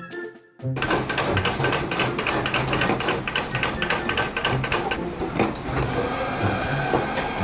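Machinery clattering rapidly, a fast run of clicks and knocks over a low hum, starting after a brief near-silent gap at the very beginning.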